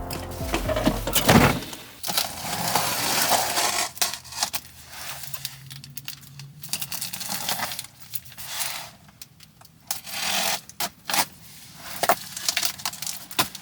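Handling noises: irregular scraping, rustling and clinking of objects being moved about, after music fades out in the first couple of seconds.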